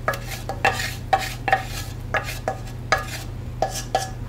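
A spoon stirring hot sugar syrup into a bowl of hard, crunchy fried kurma pieces: a run of irregular clattering knocks, about two or three a second.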